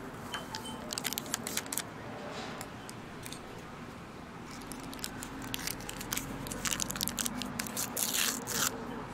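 Diner room sound: scattered sharp clinks and knocks of dishes and utensils over a low background murmur, with a brief hiss about eight seconds in.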